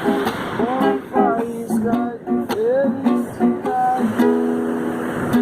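Music: a strummed acoustic string instrument, guitar or ukulele, with a voice singing a melody without clear words, its pitch sliding between notes.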